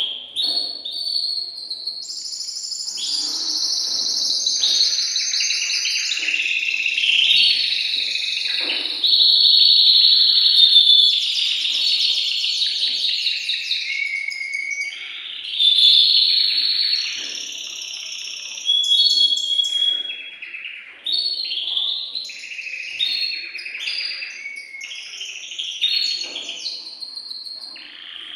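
Male domestic canary singing a long, unbroken song of fast trills and rolls, changing phrase every second or two. It is the excited full song of a male in breeding condition.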